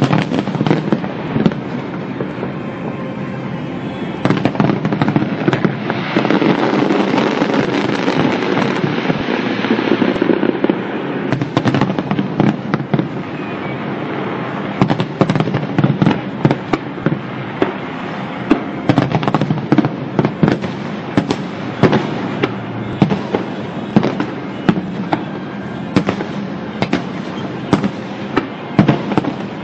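Fireworks going off: a dense stretch of crackling in the first third, then sharp bangs coming several times a second.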